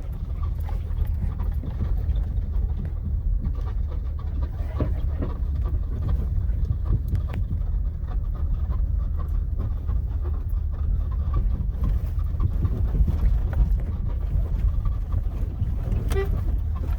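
Honda Element driving slowly over a rough forest track: a steady low rumble of engine and tyres with scattered small knocks and rattles from the bumpy ground.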